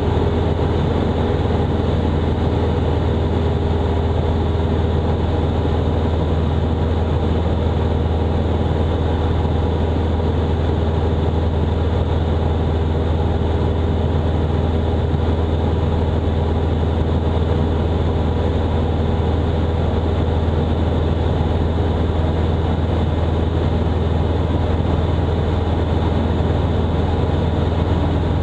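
Robin DR400's 180 hp four-cylinder Lycoming engine and propeller running steadily at cruise power, heard inside the cockpit as a loud, even drone with a deep hum.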